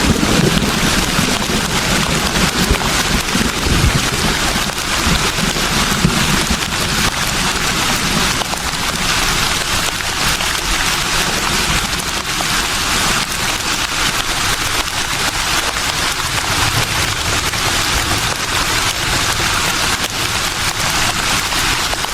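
Wind rustling through leaves: a steady, dense hiss, with low gusts of wind in the first few seconds.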